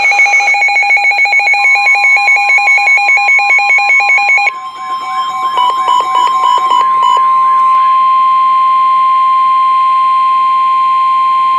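Layered electronic emergency alert tones: a fast, rapidly pulsing beeping for about the first four and a half seconds, then warbling siren-like tones for a few seconds. Under them, a steady single-pitch weather radio warning alarm tone starts about a second and a half in, carries on alone and cuts off sharply at the end, ahead of a National Weather Service warning broadcast.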